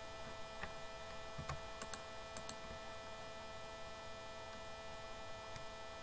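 Steady electrical mains hum with a thin steady whine, and a few faint computer mouse clicks in the first half.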